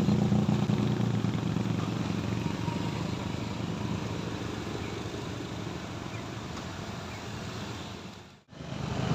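A vehicle engine pulling up a steep hill, its steady low hum slowly fading over several seconds. Near the end the sound cuts out completely for a moment, then comes back.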